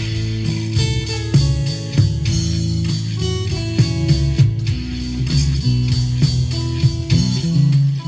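Steel-string acoustic guitar with a capo, played as a continuous song with plucked and strummed notes.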